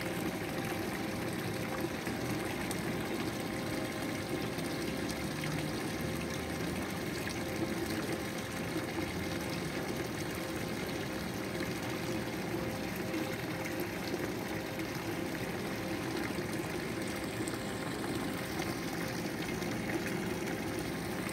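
Thin jets of water from a bronze horse-head wall fountain splashing steadily into its shallow basin.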